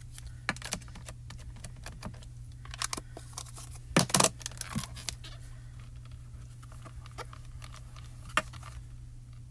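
Card-making tools being handled on a desk: light clicks and taps from the ink pad, stamping platform and paper, with a couple of louder knocks about four seconds in, over a faint low hum.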